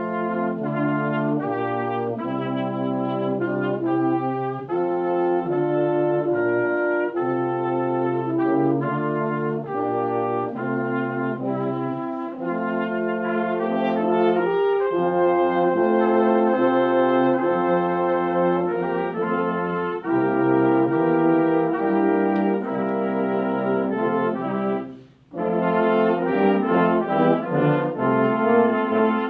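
Brass sextet, trumpets among them, playing a piece together in held chords and moving lines, with a short break about 25 seconds in before the ensemble comes back in.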